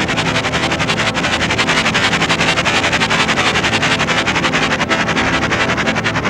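Documentary soundtrack: sustained music tones under a loud, dense rushing noise with a fine rapid crackle running through it, steady in level throughout.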